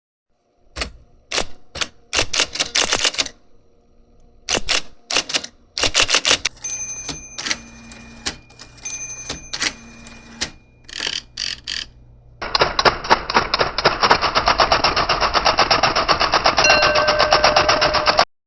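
IBM Selectric III electric typewriter being typed on: separate keystrokes in short runs, then, about two-thirds of the way through, a fast continuous stream of strikes that stops abruptly near the end. A faint steady low hum sits under the middle part.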